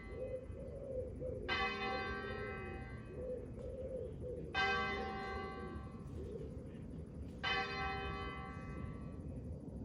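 A single church bell tolling slowly: three strikes about three seconds apart, each ringing on and fading before the next. It is a knell, tolled for a death.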